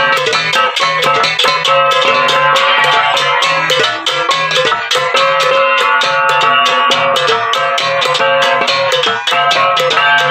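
Kankanaey gangsa (flat bronze gongs) played as an ensemble in a fast, steady, interlocking rhythm. Dense strikes with ringing metallic tones, over a lower repeating beat.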